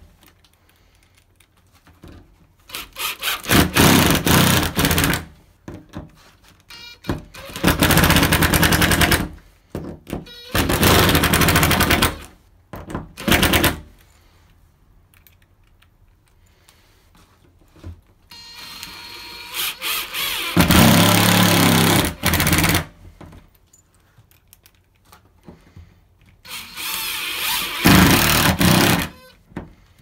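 Makita cordless impact driver driving self-tapping screws in about six bursts of rapid hammering, each a second or two long and one near the middle about four seconds, with pauses between.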